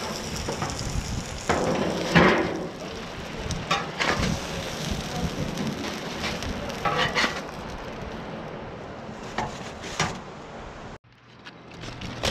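Steady hiss of a hot flattop griddle under foil-wrapped salmon fillets, broken by several sharp foil crinkles and clatters as the packets are lifted off with tongs into a metal tub. The sound cuts off suddenly about eleven seconds in.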